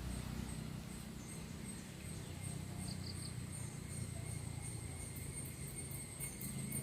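Faint outdoor ambience: a low rumble under a thin, steady, high-pitched trill, with rapid repeated high chirping joining about five seconds in.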